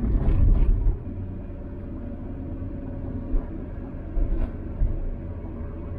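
Old VW camper van's diesel engine running while driving, with steady road rumble. The rumble is louder in the first second, and there are a couple of light knocks a few seconds in.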